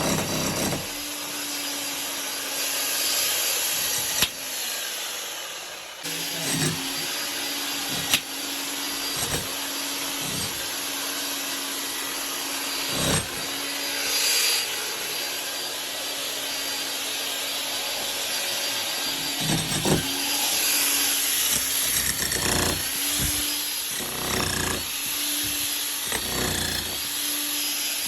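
An electric power tool's motor running steadily, with scattered knocks and scraping of work on material over it.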